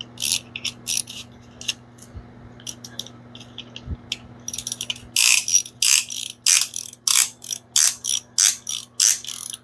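Quarter-inch drive ratchet clicking as it tightens an old-style band piston ring compressor around a piston's rings. The clicks come in short runs, sparse at first, then about two swings a second and louder from about four and a half seconds in.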